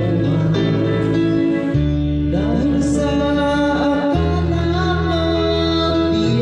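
Tagalog love song sung over a videoke backing track with guitar.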